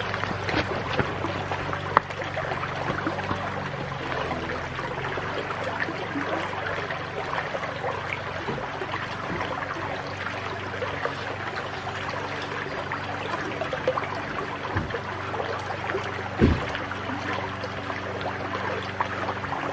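Creek water running steadily over rocks at the mouth of a culvert pipe, the creek running high after a flood. A couple of short knocks stand out, a sharp one about two seconds in and a heavier thump near the end.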